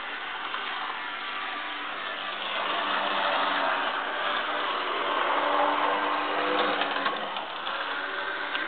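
TT-scale GE U30B model locomotive running on the track: the whir of its small electric motor and gears and the rattle of its wheels on the rails, louder for several seconds in the middle, with a few clicks near the end.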